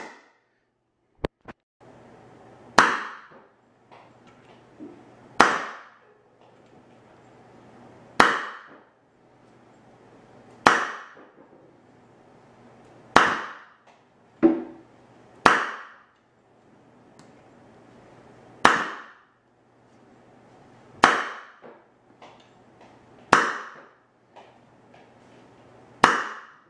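A homemade compressed-air Nerf Rival pistol, running at 150 psi through a quick-exhaust valve and trigger valve, firing about ten loud sharp blasts roughly every two and a half seconds. Each blast has a short hiss of escaping air after it.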